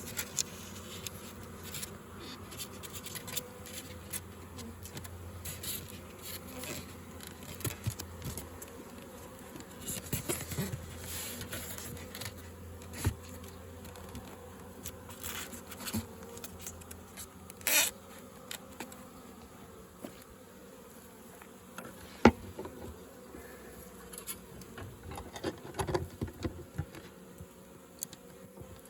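Honeybees buzzing in a steady hum around an opened hive, the colony stirred up by the inspection, with scattered clicks and knocks throughout and one sharp knock about three-quarters of the way through.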